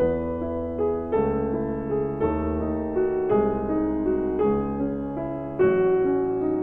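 Background music: a piano or electric keyboard playing a slow, gentle melody with chords, a new note or chord about every second.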